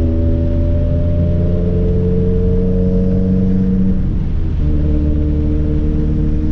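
Subaru WRX's turbocharged flat-four through a straight-piped exhaust, heard from inside the cabin. The engine note climbs slowly under light acceleration, drops suddenly about four seconds in at an upshift, then runs steady.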